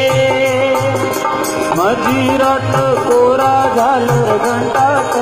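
Live devotional bhajan music: a drum keeps a steady rhythm under held, wavering melody notes, with no words sung.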